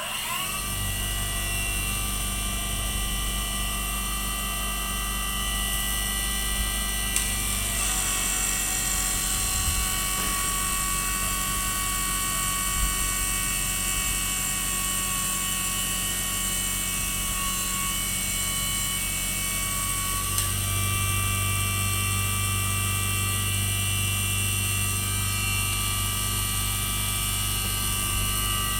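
Mini CNC lathe running: its motor spins up at the start, then whines steadily with several high tones over a low hum, the pitch shifting slightly about 8 seconds and again about 20 seconds in.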